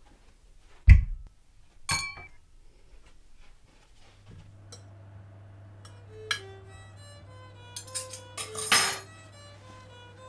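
A thump about a second in, then a ringing glass clink a second later, as drinking glasses are set down on a wooden table. From about four seconds a steady low hum and violin music run, with a clatter of cutlery and a ceramic dish near the end.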